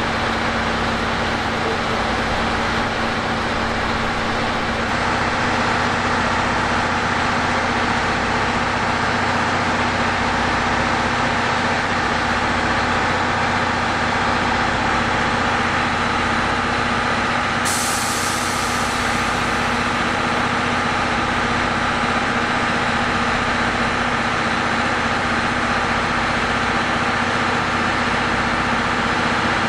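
Train noise: a steady mechanical hum and rumble. About two-thirds of the way through, a sudden hiss of released air sets in and slowly fades.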